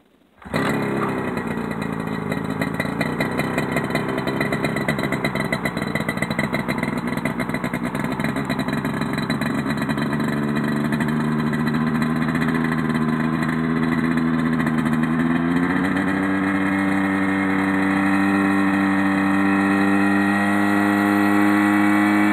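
Rotax 503 two-stroke twin-cylinder engine of a Mosquito ultralight helicopter catching about half a second in, then running steadily. Its pitch rises in steps about halfway through and again a few seconds later as it is throttled up and the rotor spins up.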